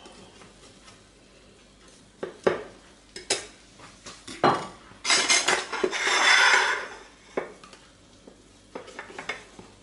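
A utensil cutting through a baked apple cake with a crumbly grated-dough topping in a glass baking dish: scattered clicks and taps against the glass, with a longer, louder crunching scrape about five to seven seconds in.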